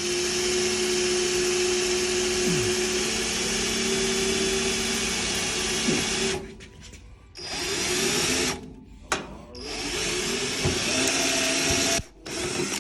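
A power tool running in three bursts: a long run of about six seconds, a short one of about a second, then another of two or three seconds.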